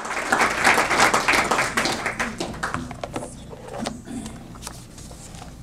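Audience applauding, dense at first, then thinning to scattered claps and dying away after about three seconds.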